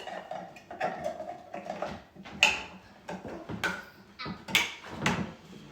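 Bassinet parts being handled and fitted during assembly: a string of irregular clicks and knocks, with a brief faint creak in the first second or two.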